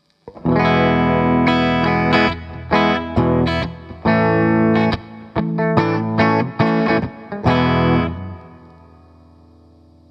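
Electric guitar played through a Boss Blues Driver BD-2 overdrive pedal: a run of overdriven chords and single notes, then a last chord left ringing and fading out about eight seconds in.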